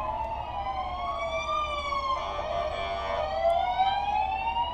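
Several police van sirens wailing together, each sweeping slowly up and down in pitch and out of step with the others.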